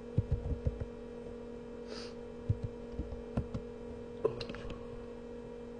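Computer keyboard keys clicking a few times, including the Enter key that runs a terminal command, over a steady electrical hum; a short hiss about two seconds in.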